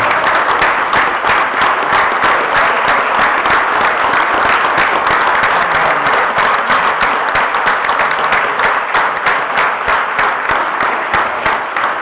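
Large audience applauding, loud and steady.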